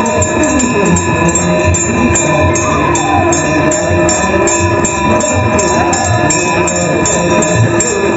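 Devotional music with a quick, steady beat over held drone-like tones and a singing voice.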